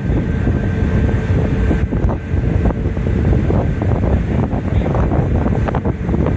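Strong wind buffeting the microphone, with a tour boat's engine running steadily underneath.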